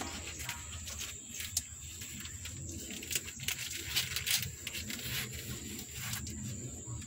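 Handling noise as a hand gropes for a four-day-old kitten in a plastic box and scoops it up: a run of short scratches and rustles of fingers, fur and loose litter on the plastic floor, thickest about three to four seconds in. A steady thin high tone runs behind.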